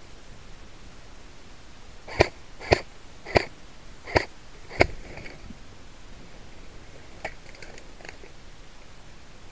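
Airsoft rifle firing five single shots, each a sharp crack, coming about half a second apart, followed a couple of seconds later by a few much fainter clicks.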